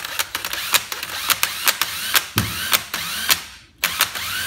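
Cordless drill turning a 3-inch bimetal hole saw slowly against the sheet-metal panel of an air handler, making a rapid ratcheting clatter of about four or five clicks a second as the teeth catch on the metal before the cut has bitten. It pauses briefly near the end and starts again.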